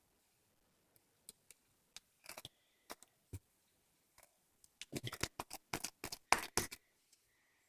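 Slime being squeezed and pressed, making scattered sharp clicks and pops. The pops grow into a dense run of crackles about five to seven seconds in.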